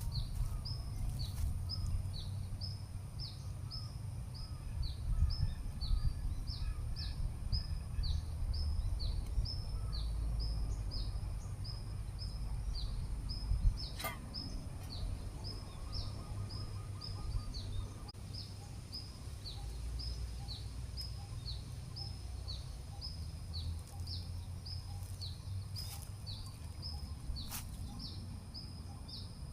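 A bird calling over and over with a short, high, falling chirp, about two a second, over a low rumble. A few sharp clicks sound near the middle and toward the end.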